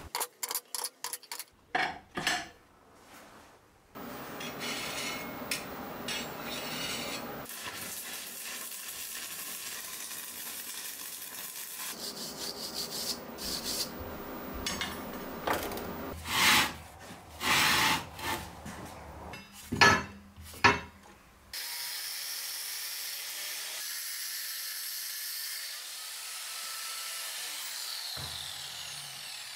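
Metal shop work in several short takes: quick clinks of turned steel pins set down on a steel plate, then long stretches of steady scraping noise broken by several loud knocks.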